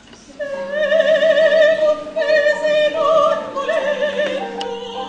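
Operatic soprano singing a high, sustained phrase with a wide vibrato, entering about half a second in, over piano accompaniment.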